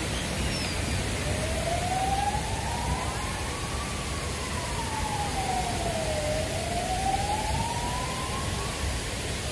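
An emergency vehicle's siren wailing: its pitch rises slowly, falls and rises again over about eight seconds, above a steady hiss of city background noise.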